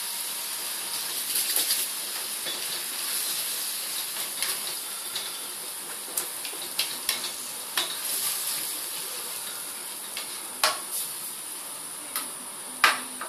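Tomato masala sauce simmering and sizzling steadily in a frying pan, with a spoon stirring and scraping through it and knocking sharply against the pan several times in the second half.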